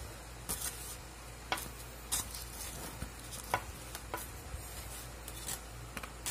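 Spoon and plastic fork scraping and tapping on crinkly aluminium foil while scooping rice, a short scrape or click every half second to a second.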